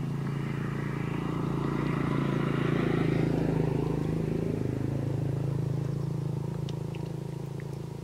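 A motor vehicle's engine passing: a steady hum that grows louder toward the middle, drops slightly in pitch about halfway through, then fades.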